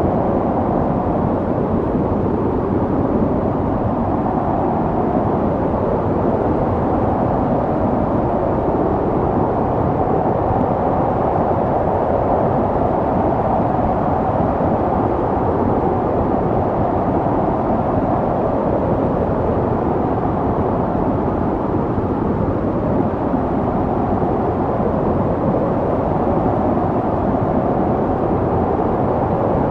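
Snowstorm wind: a steady, low rushing of wind that swells and eases slowly.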